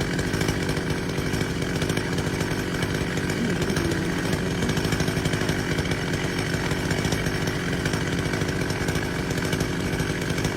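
Two-stroke chainsaw running steadily at a constant pitch while cutting a big tree.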